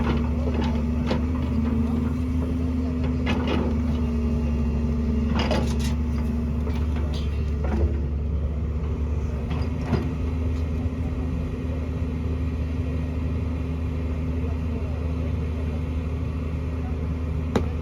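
Excavator's diesel engine running with a steady low drone, with a few short knocks scattered through.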